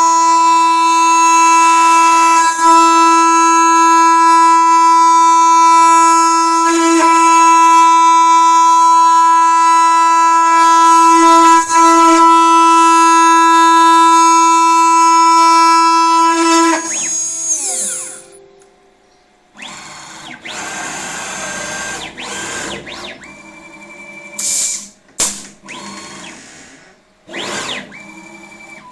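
CNC router spindle whining at a steady high pitch as it mills cellulose acetate eyeglass temples, then spinning down with a falling pitch about two-thirds of the way through. After it stops come softer mechanical sounds with a few short hisses and clicks.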